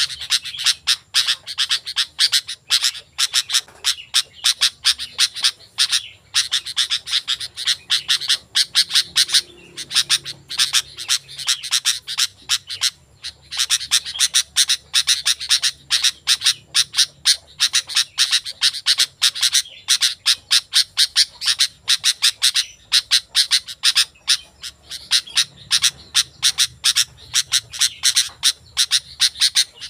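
Sooty-headed bulbul (kutilang) singing vigorously: a fast, continuous string of short notes with a few brief pauses.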